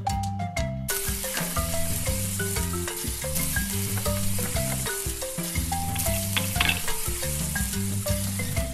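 A frying sizzle starts abruptly about a second in and keeps going, over background music with marimba-like notes and a bass line.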